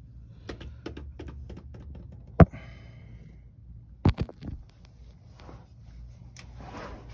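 Handling noises: a string of light clicks and taps, with one sharp knock followed by a short ring about two and a half seconds in, and a quick double knock about four seconds in.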